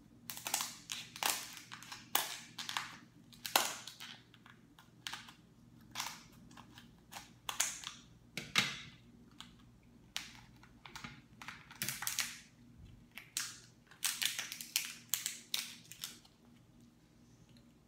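Kitchen scissors snipping through the hard shell of a cooked lobster tail: an irregular run of sharp cracks and snips, several in quick clusters. Near the end the shell cracks as it is pried apart by hand.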